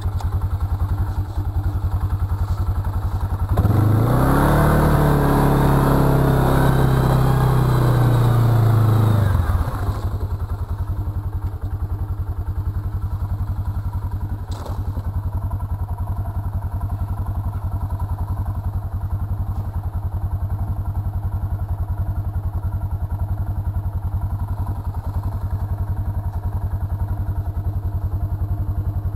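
Arctic Cat ATV engine running steadily, revved up hard a few seconds in, its pitch rising then falling back after about five seconds to a lower, steady drone, with one short knock about halfway.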